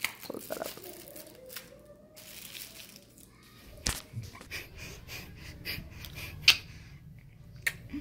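Phone being handled close to its microphone: scattered clicks and rustles, with one sharp knock about six and a half seconds in.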